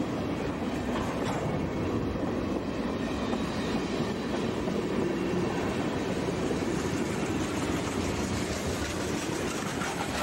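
Freight train cars (tank cars, covered hoppers and boxcars) rolling past at close range, their steel wheels running steadily on the rails.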